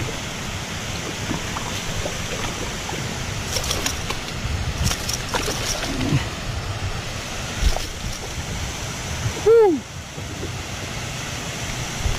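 Hooked striped bass splashing at the surface as it is landed, then slapping on the rock in a cluster of sharp knocks midway, over a steady rush of flowing water. Near the end a short rising-and-falling voice sound is the loudest thing heard.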